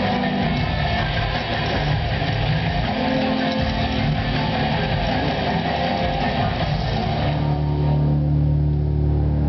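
Stage-show music heard from the audience, dense and full until about seven seconds in, then thinning to sustained low tones.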